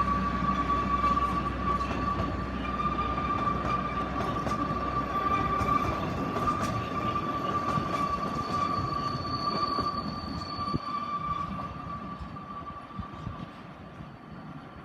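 Oigawa Railway Ikawa Line train running past and moving away: a rumble and scattered clicks from the wheels on the rails, growing fainter toward the end. A steady high-pitched tone runs throughout, and a brief higher whine comes just past the middle.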